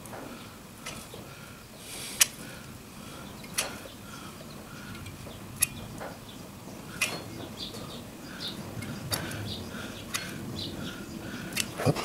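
Sharp single clicks every second or two from a hand caulking gun being worked as it lays adhesive, with faint repeated chirps in the background.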